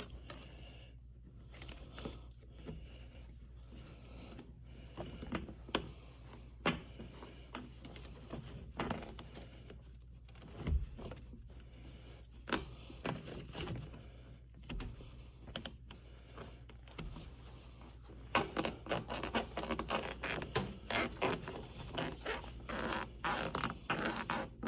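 Scraping and rustling of a hand and a pointed tool worked over new automotive carpet, probing for a bolt hole in the floor beneath. Scattered soft scrapes and light knocks at first, turning into quick, repeated scraping for the last six seconds or so.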